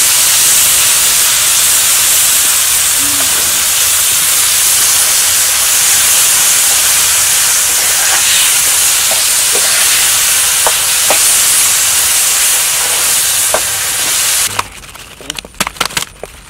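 Food sizzling in hot oil in a wok, a loud steady hiss with a few scattered pops. It cuts off abruptly about fourteen seconds in, and a few sharp clicks and taps follow.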